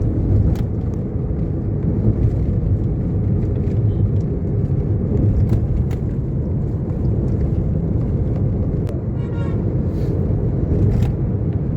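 Steady low rumble of a moving road vehicle, engine and road noise, with a few short clicks and knocks and some faint voices.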